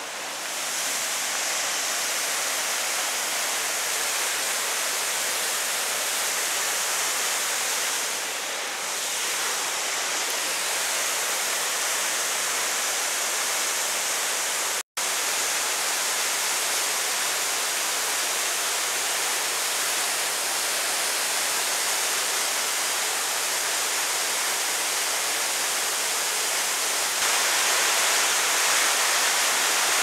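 Steady rushing of a waterfall, an even hiss of falling water. It cuts out for an instant about halfway through and grows a little louder near the end.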